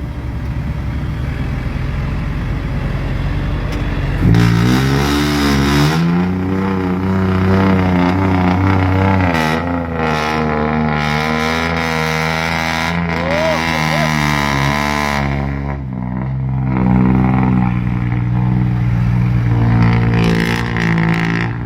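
Large diesel engine of heavy machinery running, its pitch rising and falling as it is revved. From about four seconds in it becomes much louder and clearer.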